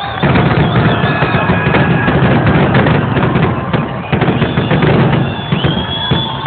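Fireworks display going off densely, with rapid overlapping bangs and crackles and no pause.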